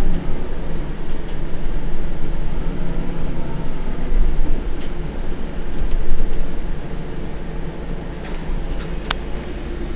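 Iveco Crossway LE bus engine idling while the bus stands at a stop, steady and a little quieter toward the end, with one sharp click about nine seconds in.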